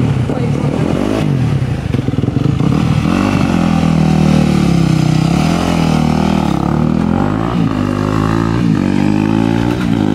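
Small vehicle engine running loud and revving, its pitch rising and falling again and again.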